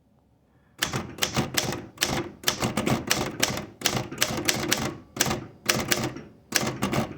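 1954 Royal manual typewriter being typed on: after a quiet first second, a quick run of sharp clacking key strikes, several a second, broken by short pauses.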